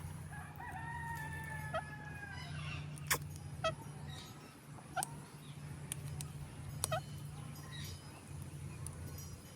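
A rooster crows once near the start, one long call of about two seconds. Short, sharp chirps from an Indian ringneck parakeet follow at intervals, over a steady low hum.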